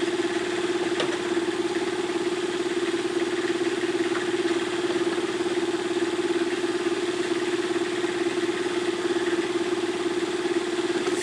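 A machine running steadily with an engine-like hum and a fine rapid pulsing, unchanging throughout.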